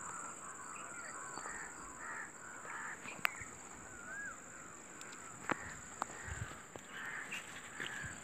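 Birds calling repeatedly with short harsh calls and one rising-and-falling whistle, over a steady high-pitched tone, with a few sharp clicks.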